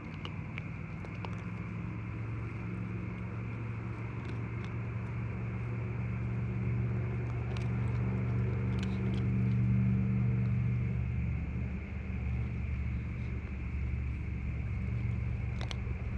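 A steady low mechanical hum that swells slightly in the middle, with a few faint clicks.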